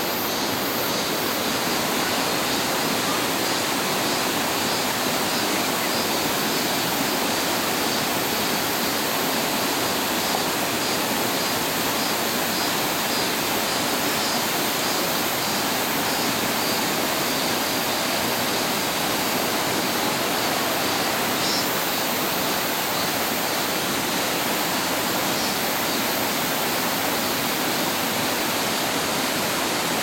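Mountain stream cascading in whitewater over boulders: a steady, even rush of water.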